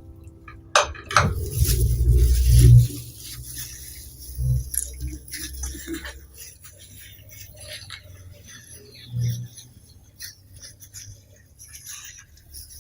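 Kitchen utensils knocking and scraping on dishes during food preparation: a few sharp clicks a little under a second in, heavy muffled thudding from about one to three seconds in, then scattered light clicks and scrapes.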